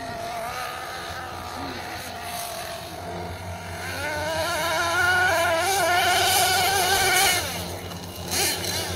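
Small nitro engine of a Team Associated MGT 8.0 RC monster truck running at high revs under way, a high, wavering whine. It grows louder from about three seconds in and drops off sharply near the end.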